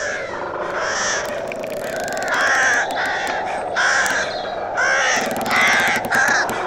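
Crows cawing, about half a dozen harsh calls in quick succession that grow louder in the second half, over a steady background hiss.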